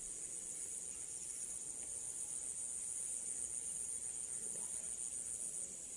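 Steady high-pitched chorus of insects chirring, with a faint pulsing texture.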